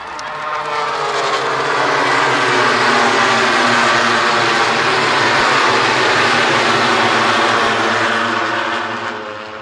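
A pack of MotoGP racing motorcycles, 1000 cc four-cylinder four-strokes, passing at high revs with many engines overlapping. It swells over the first couple of seconds, stays loud, and fades away near the end.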